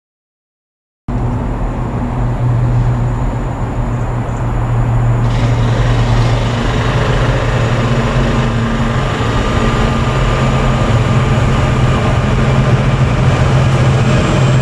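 Freightliner Class 66 diesel-electric locomotive approaching and passing at the head of a container train, its two-stroke V12 engine giving a steady low drone that grows louder from about five seconds in. The sound starts after a second of silence.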